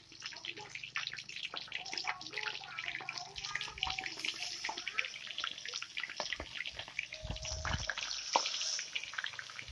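Hot oil sizzling and crackling in a kadhai as fish deep-fry, a dense, steady crackle of tiny pops. There is a low thump about seven seconds in.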